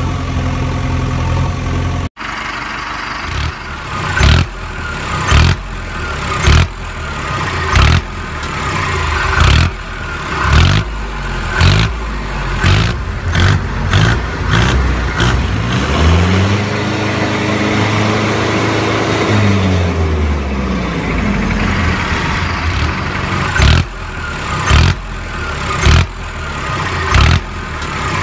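Engine sound effect laid over the toys: a motor vehicle engine running with a loud surge a little more than once a second, and one long rev that rises and falls back in the middle.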